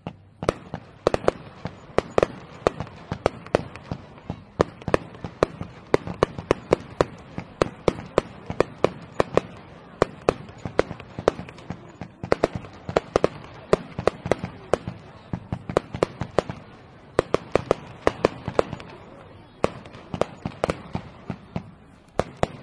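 Fireworks going off: a rapid, irregular run of sharp bangs and pops, several a second and varying in strength, over a steady low background rumble.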